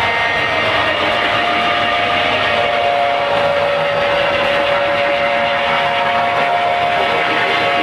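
Live band playing loud: a dense, distorted wall of guitar, bass and cymbal wash, with long held tones sounding over it.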